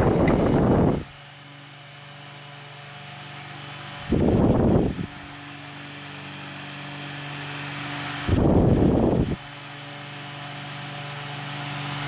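Holmes Blizzard oscillating table fan running with a steady motor hum. About every four seconds its air stream sweeps across the microphone, making a loud rush of wind noise about a second long.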